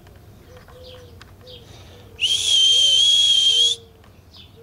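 A person whistling one long, steady, high note for about a second and a half, starting about two seconds in, with faint short chirps around it.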